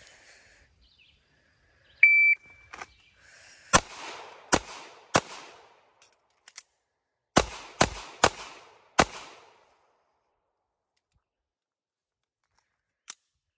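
A shot timer beeps once, then a pistol fires three quick shots. After a short gap with a couple of clicks for the slide-lock reload, it fires four more shots, each followed by an echo. A single small click comes near the end.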